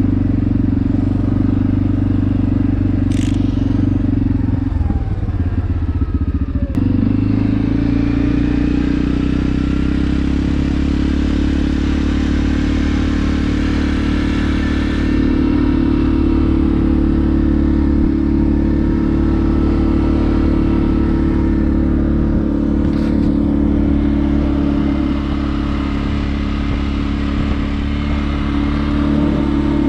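CFmoto CForce 450L ATV's single-cylinder engine running steadily while riding, heard from the passenger seat, its note dipping and changing briefly about five to seven seconds in. A couple of sharp knocks stand out, near the start and about two thirds of the way through.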